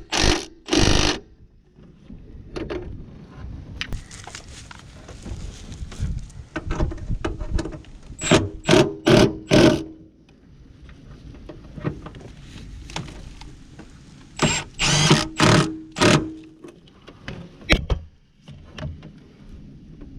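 Impact wrench run in short rattling bursts: two near the start, then four in quick succession twice more, as fasteners are worked during a clutch replacement.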